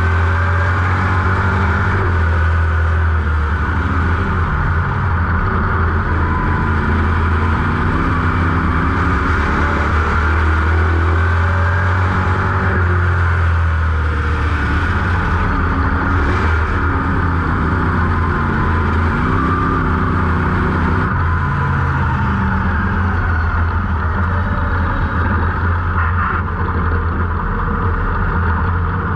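GM 602 crate V8 of a dirt-track Sportsman modified running at moderate, fairly steady revs, its pitch rising and falling gently, heard from inside the open cockpit.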